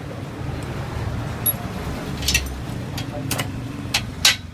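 A steady low rumble of road traffic, then a few sharp knocks and clicks of repair work on a bicycle in the second half, the loudest just before the end.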